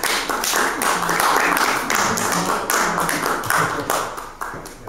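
Small audience applauding, a dense patter of hand claps that thins out near the end.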